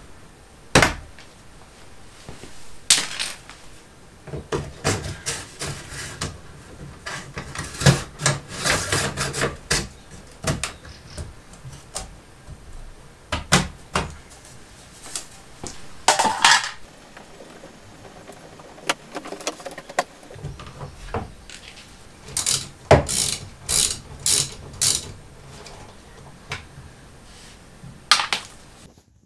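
Hand tools and screws clicking and clattering as fasteners are undone from a car bumper: scattered sharp clicks, with a quick run of them about three-quarters of the way through.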